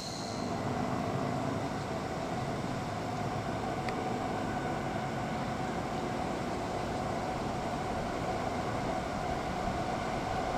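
Freight train running by: a steady rolling rumble of wheels on the rails, with a faint steady tone over it.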